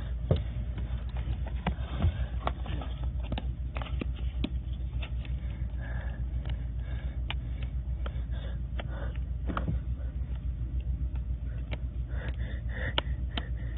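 Steady low rumble with scattered light clicks and knocks of things being handled and moved about.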